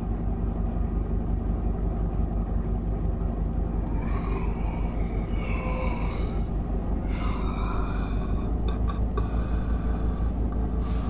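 A steady low rumble, with a few brief higher wavering tones between about four and seven seconds in and some faint clicks about nine seconds in.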